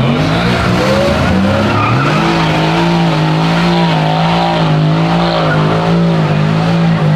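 A car doing a burnout: its engine revs up about two seconds in and is then held steady at high revs, with the tyres squealing as they spin.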